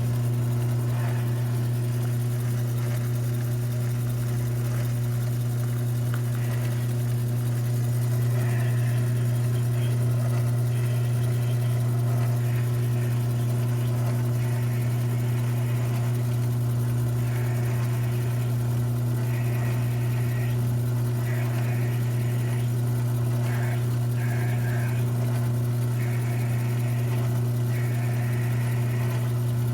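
Mini lathe running steadily while drilling a hole in metal: a constant motor hum, with higher-pitched cutting noise from the drill bit coming and going as it is fed in.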